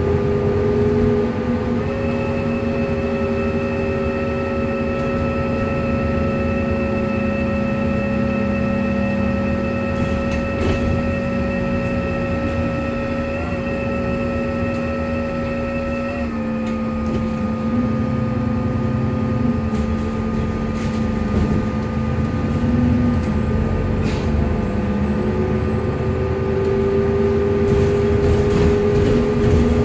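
Alexander Dennis Enviro 400MMC double-decker bus running with a loud whirring whine: several high steady tones hold over the running noise and shift slightly in pitch about two seconds in and again about halfway. A lower tone falls in the first few seconds and climbs again near the end.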